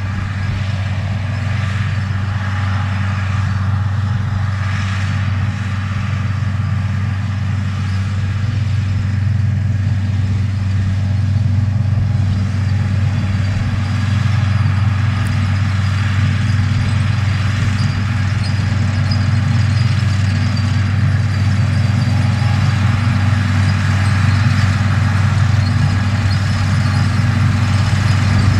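Diesel engine of a Case IH Steiger 9330 four-wheel-drive tractor running steadily as it pulls a hay merger through the field, growing gradually louder as it approaches.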